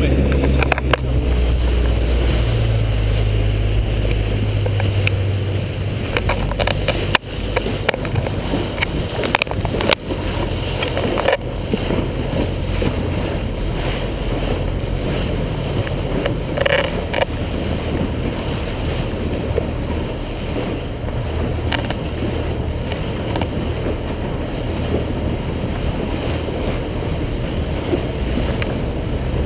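Small motorboat under way: a steady low engine drone under the rush and splash of water close by. A few sharp knocks come in the first half.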